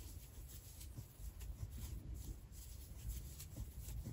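Faint rubbing and light irregular ticks of a crochet hook drawing cotton yarn through stitches as double crochets are worked.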